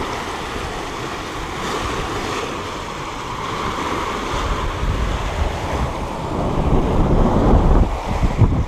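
Water rushing and splashing past the bow of a sailing yacht under way, with wind buffeting the microphone. The low wind rumble grows louder over the last few seconds.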